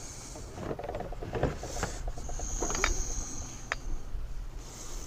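Small parts being handled and fitted together: scattered light clicks and taps, with a thin high squeak lasting about a second in the middle, over a steady low hum.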